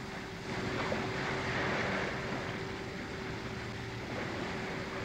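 Outboard motor of a small boat running steadily, with the rush of choppy water and waves around the hull.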